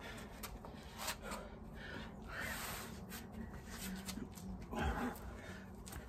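A man breathing hard during burpees, with long hazy exhales about two and a half seconds in and again near five seconds. Faint knocks from hands and feet landing on an exercise mat come in between.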